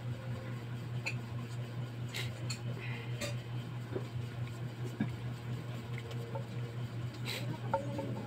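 Steady low electrical hum with scattered light clicks and taps as hands handle small objects.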